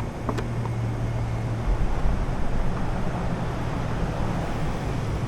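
Steady low machine hum under a noisy background, with a couple of faint clicks just after the start.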